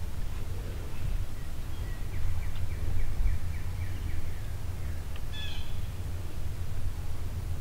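A small songbird sings a run of about nine quick, evenly spaced notes, followed a few seconds later by a short, higher chirp. All of it sits over a steady low rumble, which is the loudest sound throughout.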